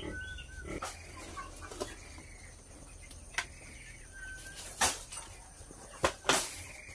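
Broiler chickens clucking and calling, with several sharp clicks and knocks; the loudest knocks come about five and six seconds in.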